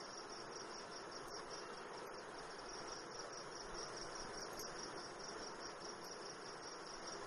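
Crickets chirping: a steady high-pitched trill over a faint constant hiss.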